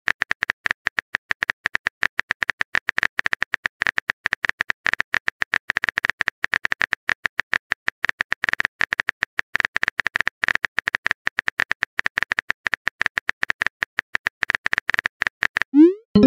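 Rapid, irregular keyboard-tap clicks of a texting-app typing sound effect as a long message is typed out letter by letter. Just before the end, a short rising tone as the message is sent.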